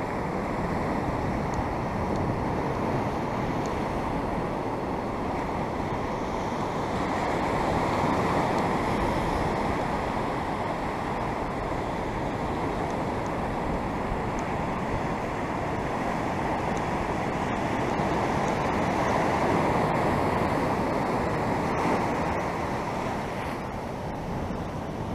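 Ocean surf breaking and washing up a sandy beach: a steady rush that swells about eight seconds in and again near twenty seconds.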